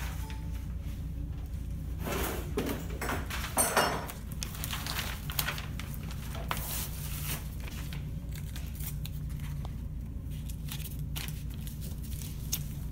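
Paper being handled and rustled on a table, loudest a couple of seconds in, with scattered light clicks and taps over a steady low room hum.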